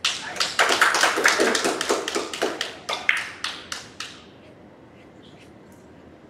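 Scattered hand clapping from a few spectators, about twenty claps over four seconds that thin out and fade, in applause for a point just scored in a three-cushion billiards run.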